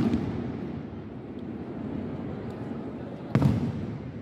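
Aerial firework shells bursting: a bang right at the start and another about three and a half seconds in, with a low rumble from the display between them.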